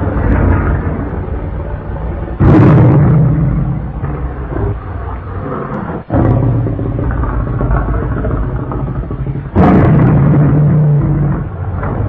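Custom Tyrannozilla Rex kaiju roar sound effect: deep, layered monster roars mixed from big-cat, T. rex and Godzilla-style roars. It rumbles continuously, with loud roars breaking out about two and a half seconds in and again about nine and a half seconds in, and a brief break around the middle.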